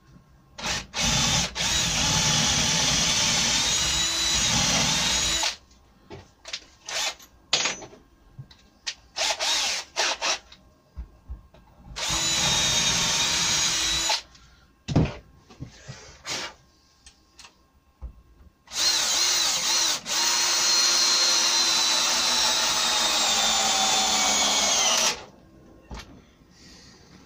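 Cordless drill working into the joint of a pine bracket's curved brace: three long runs of the motor with short on-off trigger bursts between them. In the last long run the whine falls slowly in pitch.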